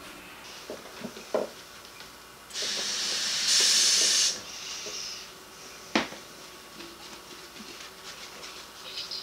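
Hand dishwashing at a soapy kitchen sink: a few small clinks of dishes, then the tap runs with a loud hiss for about two seconds, and a single sharp knock of dishware follows.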